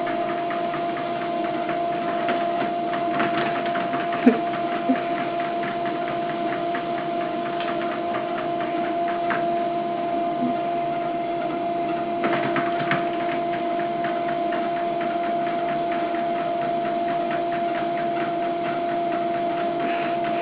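Steady machine hum with two held tones over a fast, fine rattle, with a sharp click about four seconds in and a few fainter ones later.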